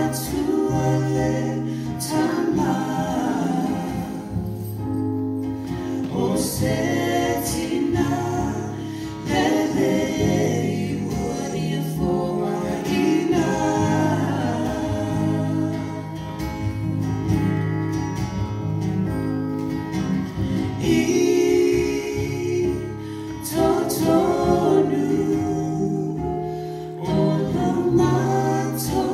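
Three voices, two women and a man, singing a gospel song together over a strummed acoustic guitar, picked up through the church's microphones.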